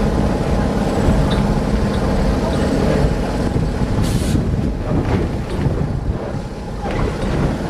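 Vintage wooden electric tram running along street track, heard on board: a steady rumble of wheels on the rails with knocks and rattles from the car body. A short hiss sounds about four seconds in.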